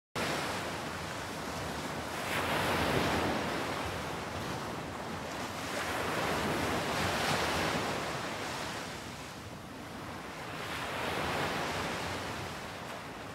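Ocean surf: a steady rushing wash of waves that swells and eases back three times, about every four seconds.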